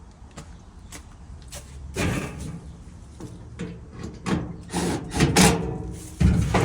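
Knocks, bangs and clatter of a clothes dryer's cabinet and panels being handled during reassembly. Scattered light clicks come first, then louder bangs from about two seconds in.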